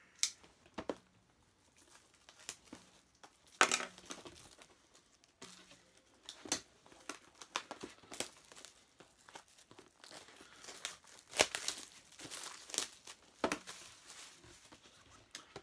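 Plastic packaging crinkling and rustling as a boxed collectible set is opened by hand, with irregular sharp crackles and tearing sounds scattered throughout.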